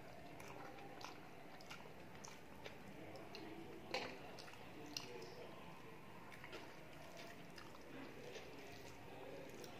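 Close-miked chewing and mouth sounds of someone eating rice and vegetable curry, with soft squishing as fingers mix rice on a steel plate. A few sharp clicks come through, the loudest about four seconds in.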